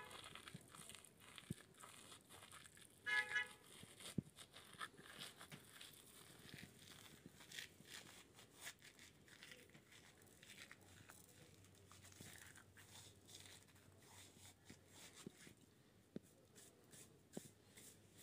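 Faint dry crinkling and rustling of a dry seasoning being rubbed between the palms over a bowl of yogurt, with scattered small crackles. A short pitched sound stands out about three seconds in.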